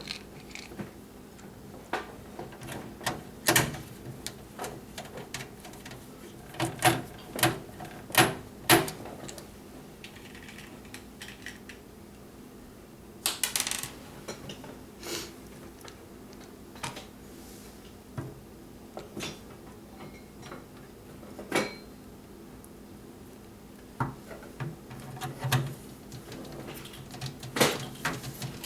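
Irregular clicks, taps and light metallic clatter of handling a motherboard, screws and computer case parts during assembly, with a quick run of clicks about halfway through. A steady low hum lies beneath.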